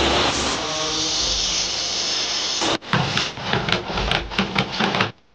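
Table saw running as it cuts through a wooden board, cutting off suddenly about two and a half seconds in. Then a quick run of sharp wooden knocks as small wooden blocks are set down on a wooden workbench.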